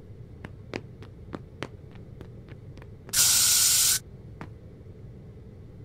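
Footstep sound effects as faint, quick clicks, about three a second, then one loud, even hiss lasting about a second, and a last click.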